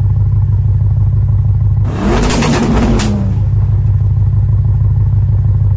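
Tuned Audi estate car's engine running with a steady low rumble, blipped once about two seconds in: the pitch rises and falls over about a second, with a rapid burst of exhaust crackles and pops as it comes back down.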